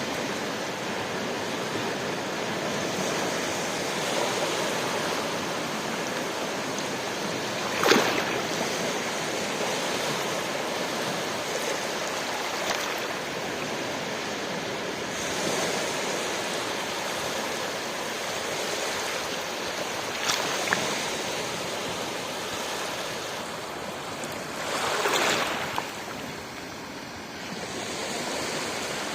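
Ocean waves breaking and washing over a steady surf hiss. A few louder surges come through, the sharpest about eight seconds in and a longer one near the end.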